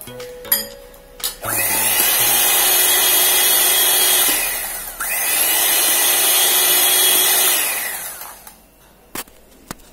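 Electric hand mixer running, its twin beaters whisking egg, sugar and oil batter in a glass bowl. It runs steadily, dips briefly about five seconds in, then winds down and stops about eight seconds in.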